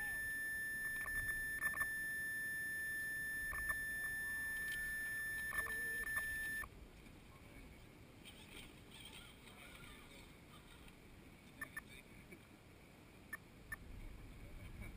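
Steady high-pitched electronic whine from the RC truck's on-board electronics, cutting off abruptly about six and a half seconds in. Faint voices and a few light clicks follow.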